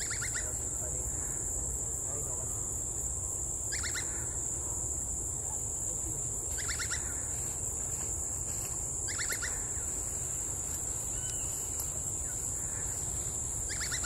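Great slaty woodpecker calling: short, rapid series of notes, given five times a few seconds apart. Under it runs a steady high-pitched insect drone.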